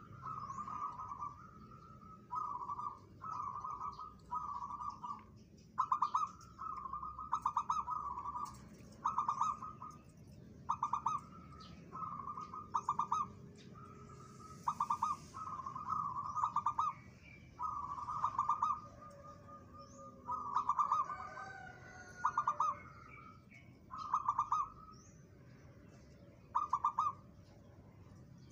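Zebra dove (perkutut) cooing over and over: short phrases, each a quick stuttering run of notes, about one every second or so with brief pauses. The uploader calls this bird's song "rapet", tight and close-knit.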